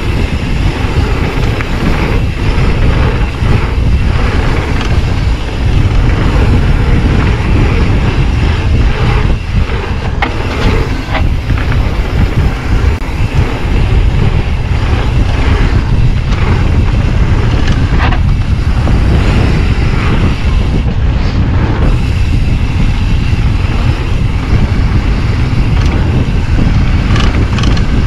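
Wind buffeting the microphone of an action camera on a mountain bike riding down a dirt flow trail. Tyres rumble over the ground, with scattered clicks and knocks from the bike rattling over bumps.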